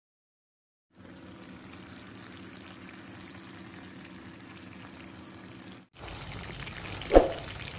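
Batter-coated chicken pieces deep-frying in hot oil in an iron kadai, the oil sizzling and bubbling steadily from about a second in. A single sharp knock comes near the end.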